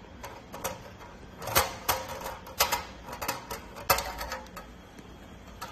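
Grease tray and ash tray of a cast aluminum kamado grill being handled: irregular sharp metallic clicks and clanks, a few louder ones between about one and a half and four seconds in, some with a short ring.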